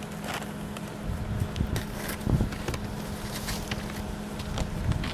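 Outdoor wind and handling rumble on the camera microphone over a steady low hum, with scattered light clicks and crunches on dry gravelly ground.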